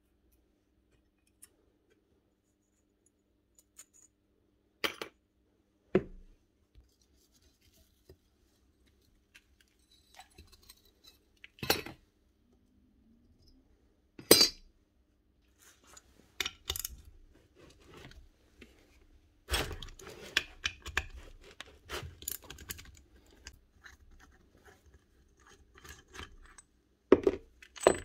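Steel parts of a magnetic drill being handled and set down on a workbench during disassembly: scattered metal clinks and knocks, with a busier stretch of knocking and scraping in the second half.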